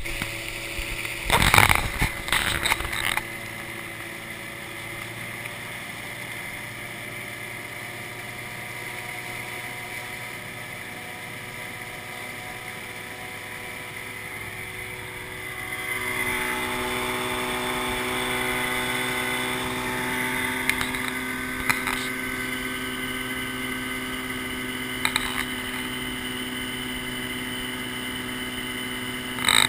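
Outboard motor of a small aluminium boat running steadily under way, its note stepping up and getting louder about halfway through. A burst of loud thumps near the start.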